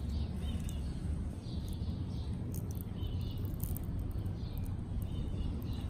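Small birds chirping in short, irregularly repeated calls over a steady low rumble of outdoor background noise, with a few faint sharp clicks.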